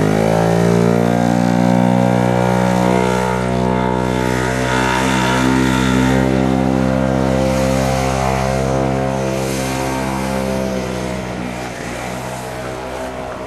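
1969 OMC Snow Cruiser 209E snowmobile's two-stroke engine climbing in pitch as the sled pulls away, then running at a steady high pitch. It fades in the last couple of seconds as the sled moves off.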